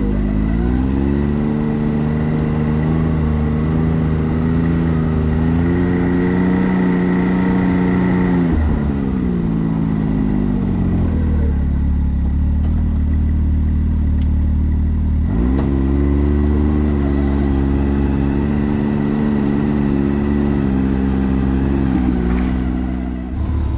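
Can-Am Maverick X3 side-by-side's engine under throttle. Its revs climb and hold steady for about eight seconds, drop back to a low rumble, then climb and hold again for about seven seconds before easing off near the end.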